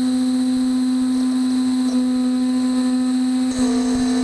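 Beaver HDZero CNC router's spindle running with a steady whine, its pitch holding level, with a small change in its overtones about three and a half seconds in.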